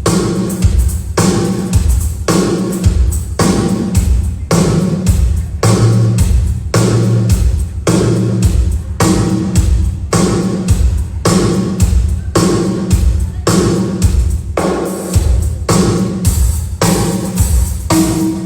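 Drum kit playing a steady groove for a sound check: bass drum and snare hits about twice a second, with hi-hat.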